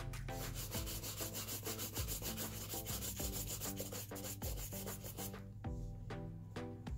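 A bristle shoe brush buffing polish into black leather shoe uppers in quick back-and-forth strokes, a brisk scratchy rubbing. The strokes thin out and slow down near the end.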